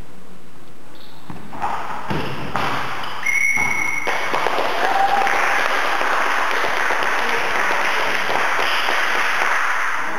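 Torball play in a sports hall: a few thuds, then a short high whistle blast from the referee, followed by several seconds of dense, steady noise.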